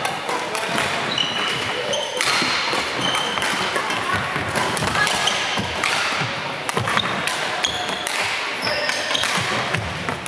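Badminton play in a large sports hall: sharp racket strokes on the shuttlecock and brief high squeaks of court shoes on the wooden floor, over indistinct chatter from around the hall.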